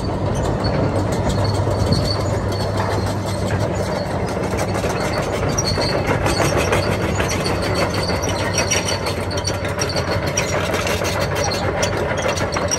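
2013 Hitachi ZX470LCH-5B hydraulic excavator travelling on its tracks: the diesel engine runs steadily while the steel track chains clank and squeak continuously.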